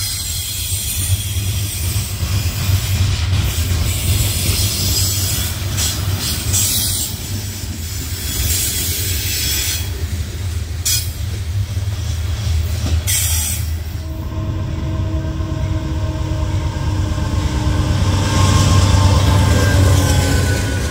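Loaded coal hopper cars rolling past, steel wheels rumbling and clicking on the rail with some squeal. About two-thirds through the sound changes to a passing CSX GE AC4400CW diesel locomotive on an intermodal train, its engine and traction motors adding steady whining tones over the rumble, which grows louder near the end.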